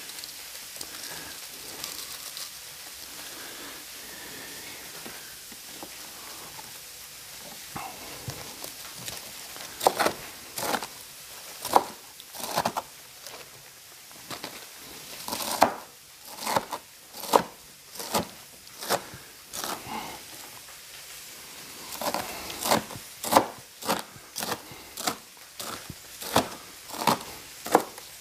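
Ribeye steak searing on a Blackstone flat-top griddle, a steady sizzle. From about ten seconds in, runs of loud, sharp clicks and crackles come roughly one or two a second, louder than the sizzle.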